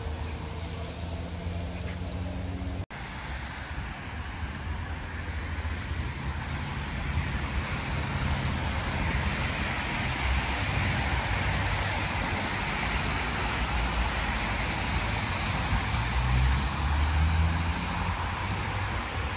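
Road traffic on a wet road: steady tyre hiss with the low rumble of passing cars. It swells louder from about a third of the way in. There is a brief break in the sound about three seconds in.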